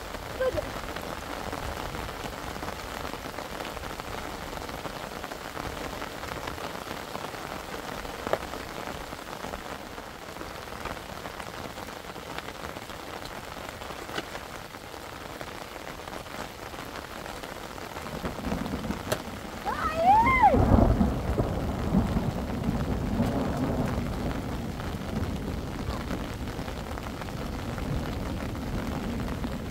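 Heavy rain falling steadily. About two-thirds of the way through, a low rumble of thunder builds, peaks loudly and keeps rolling, with a brief high sliding cry at its onset.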